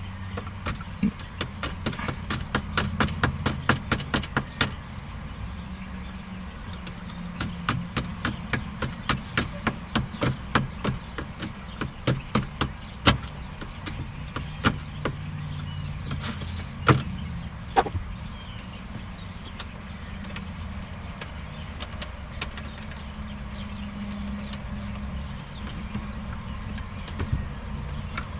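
Sharp metallic taps on a flathead screwdriver, turning the steering-column bolts back in. They come in quick runs of about three to four a second, then thin out to a few single, louder taps.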